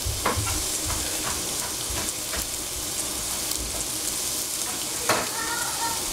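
Sliced pork sizzling in a hot frying pan, a steady hiss with a few sharp clicks, the loudest about five seconds in.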